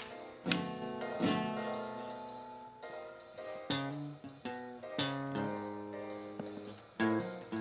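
Acoustic guitar music: plucked and strummed chords, each ringing out and fading before the next.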